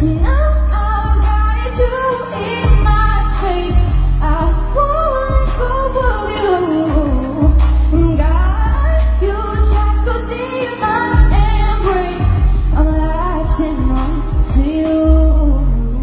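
Live pop music: a woman sings a gliding melody into a microphone over an amplified backing with heavy bass.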